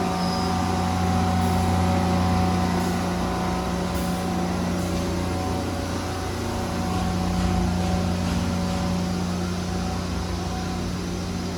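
Okuma V760EX vertical turret lathe running, a steady machine hum with several steady tones, while it cuts at a slow feed rate.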